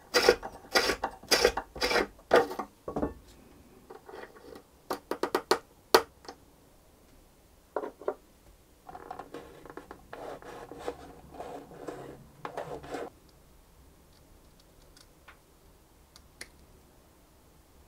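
Hand tools scraping on violin wood: about six loud rasping strokes in the first three seconds as a T-handle reamer is turned in the end pin hole, a quick run of clicks around five seconds in, then further bouts of scraping from about eight to thirteen seconds.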